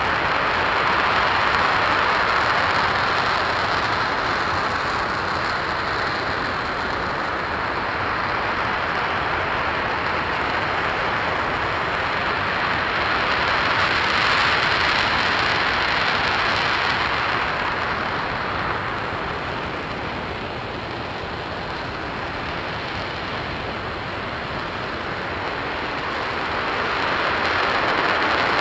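RS-25 liquid-hydrogen/liquid-oxygen rocket engine firing steadily in a ground hot-fire test: a continuous, dense rushing noise that swells and eases slowly every several seconds.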